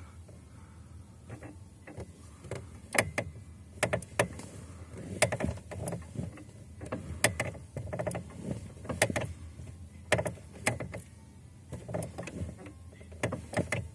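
Lada Granta clutch pedal mechanism being worked, giving irregular sharp clicks and knocks. The noise comes from the pedal's pivot bushing, which the owner suspects is worn.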